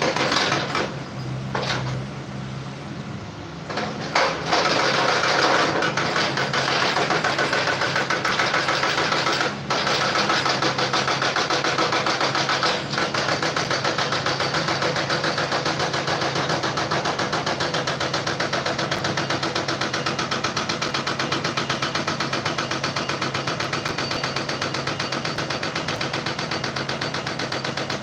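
A small machine running with a fast, even rattle, quieter for a few seconds near the start and then steady.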